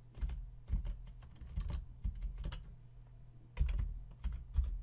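Computer keyboard typing: irregular key presses in uneven clusters, with a low steady hum underneath.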